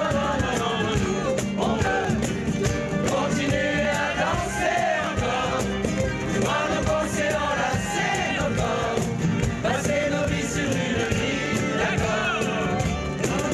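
A large crowd singing a song together in chorus, accompanied by live acoustic guitars, with a steady beat.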